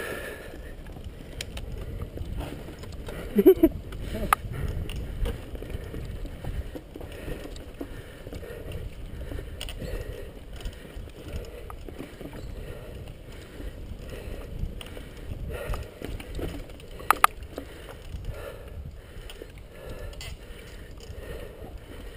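Mountain bike riding fast down a dirt singletrack, heard from the bike: a steady low rumble of wind on the microphone and tyres on dirt, with the bike rattling and a few sharp knocks over bumps, the loudest about three and a half seconds in and again near seventeen seconds.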